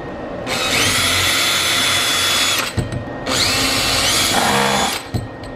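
Makita cordless drill running in two bursts of about two seconds each, its motor whine rising as it spins up each time, while fastening a mounting bracket for LED strip light inside a wooden cabinet.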